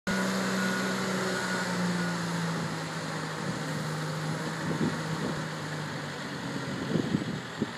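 Boat travel lift's engine running with a steady hum that sinks slightly in pitch and fades after about six seconds.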